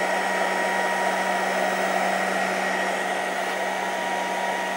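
Cooling fan of a SkyRC Ultimate Duo 400W X2 LiPo balance charger running while it charges on both ports, with the 1300-watt 12 V power supply fans under it. It is a steady, even whir with a constant low hum and a higher whine.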